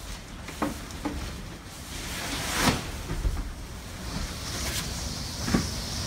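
Sliding glass door worked open with a few clicks and knocks, then blizzard wind rushing in through the opening as a steady hiss from about four seconds in, with another knock near the end.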